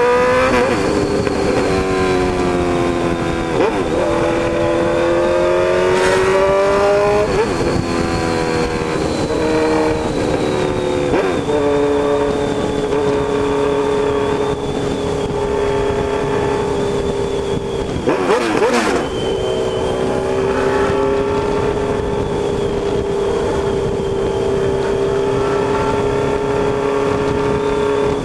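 Honda CB1000's inline-four engine and exhaust under way, the note rising and falling with the throttle and dropping at gear changes several times, then holding a steady cruising pitch for much of the second half. Two brief rushes of noise break in, one about a quarter of the way in and one about two-thirds in.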